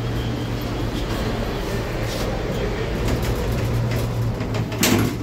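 Elevator car running: a steady low hum and rumble from inside the lift cabin, with a single sharp thump near the end.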